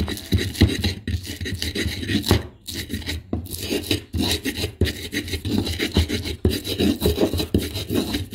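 Pestle grinding green chilies and salt in a stone cobek mortar: quick repeated rasping and knocking strokes of pestle against the mortar.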